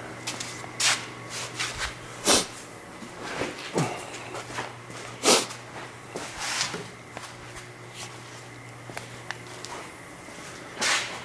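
Scattered knocks, clunks and footsteps of someone moving about while handling the camera, over a steady low hum, with a louder knock near the end.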